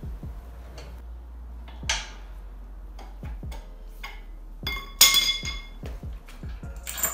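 Background music with a steady beat. About five seconds in comes a loud metallic clink that rings on, with a smaller clink near the end: the engine crane's lifting chain and hook knocking against metal.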